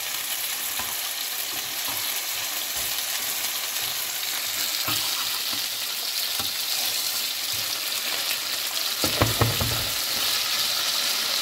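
Strips of beef steak sizzling steadily as they sear in a frying pan, with metal tongs knocking and scraping against the pan as the pieces are turned, the loudest knocks coming about nine seconds in.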